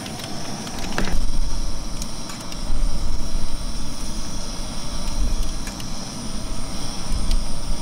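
Wind rumbling and buffeting on the microphone in gusts, over a steady high hiss. A few light metal clicks come from tongs lifting noodles in a metal cooking pot.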